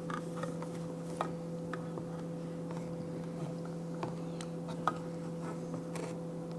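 Hand-crank can opener being turned slowly on a can: scattered small clicks and ticks from the crank and cutting wheel at an uneven pace, over a steady hum.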